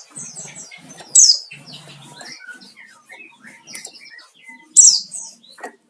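Wild-type pleci (white-eye) singing a rapid, varied twittering of short high chirps, with loud sharp notes about a second in and again near the end. This is the challenging song used as a lure to provoke other white-eyes to sing.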